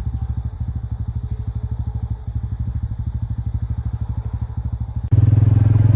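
Small vehicle engine running with a rapid, even putter. About five seconds in it suddenly gets louder, with a strong deep drone.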